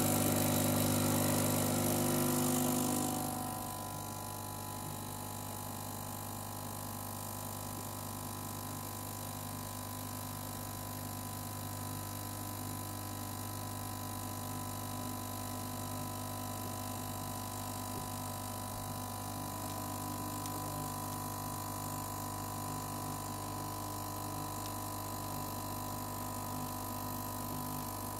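Gaggia Classic espresso machine's vibratory pump running through a shot with a steady low hum. It is loud for the first three seconds, then drops to a quieter, steady buzz as it pushes against the coffee puck.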